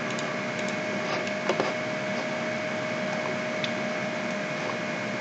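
Steady background hiss of the recording with a faint steady whine, and two faint clicks about a second and a half in.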